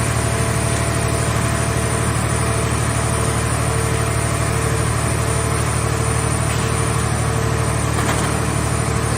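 Scrap car-body baler's engine running steadily with a fast, even throb, and a thin steady hum over it.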